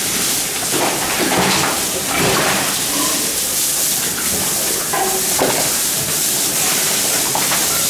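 Water from a hose spraying steadily over pigs and the wet concrete pen floor, a continuous hiss, with a few short tonal sounds over it about three and five seconds in.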